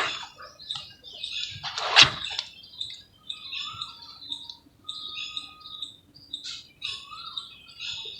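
Small birds chirping and whistling repeatedly, with one short, loud burst of noise about two seconds in.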